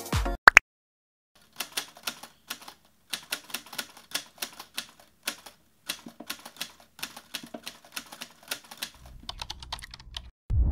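Rapid, irregular keystroke clicks of a typing sound effect, several strokes a second with short pauses between runs. It opens with a short, loud hit as the intro music cuts off.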